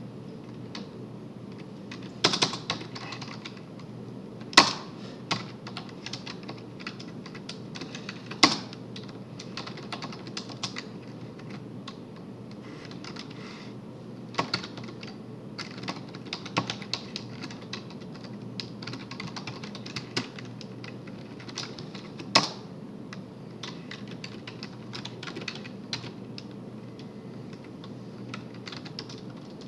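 Computer keyboard typing: irregular runs of key clicks, with a few louder clicks about two, four and a half, eight and a half and twenty-two seconds in.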